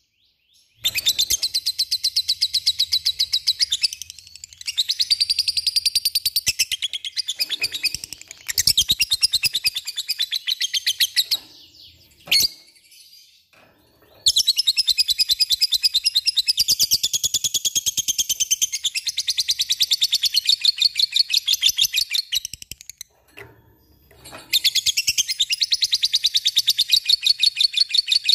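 Lovebird chattering in long, very fast high-pitched trills (the 'ngekek' song), in bouts of a few seconds broken by short pauses, with one long bout of about eight seconds in the middle.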